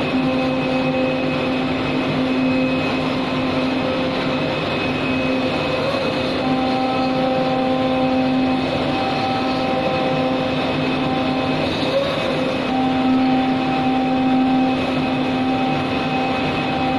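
CNC knife cutting machine running: a steady hum with a whine that drops in and out as the machine works.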